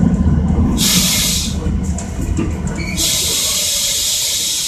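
Iyo Railway Moha 50 tram running along street track with a steady low rumble. Two spells of high hiss start and stop abruptly, a short one about a second in and a longer one from about three seconds.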